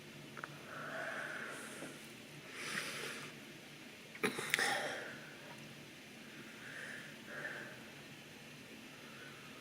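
Close-miked breathing and mouth noises: a few short sniff-like breaths, with a cluster of sharp clicks about four seconds in.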